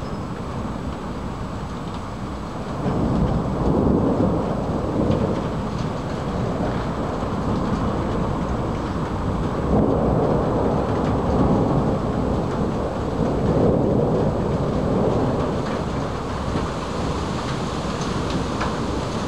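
Rolling thunder over steady rain. The rumble swells about three seconds in, again near the middle, and once more a few seconds later, with no break in the thunder.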